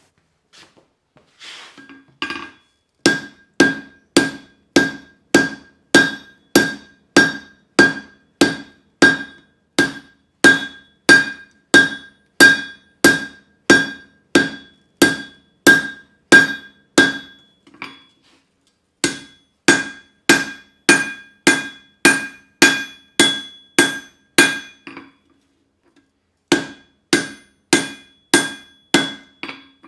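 Hand hammer striking a hot leaf-spring steel bar on an anvil's horn, drawing it out, at about two blows a second. Each blow leaves a short metallic ring. The blows come in three runs with two brief pauses.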